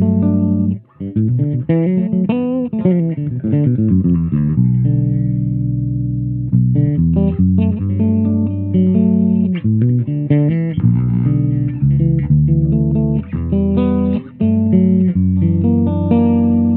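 Cunningham RLJ6 headless electric bass played with its EQ knobs all set flat: a melodic line of plucked notes, with a long held note about five seconds in, ending on a note left ringing.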